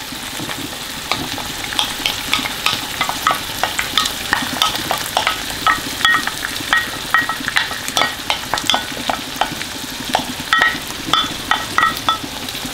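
Chicken livers, bacon and onions sizzling in a frying pan as double cream is poured and scraped in, with many short clinks and scrapes of utensils against the pan and jug.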